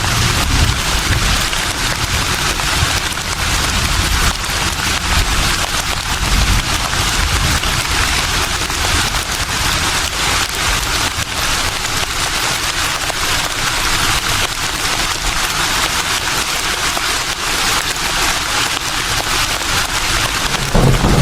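Leaves rustling steadily in the wind, a dense crackly hiss, with a low rumble rising near the end.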